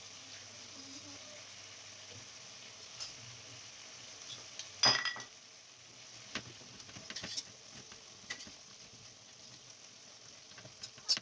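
Potato and tomato stew simmering in a wide metal pan on a gas burner: a steady sizzling hiss. There is one sharp knock about five seconds in and a few lighter clicks, and near the end a spoon stirs the stew and clanks against the pan.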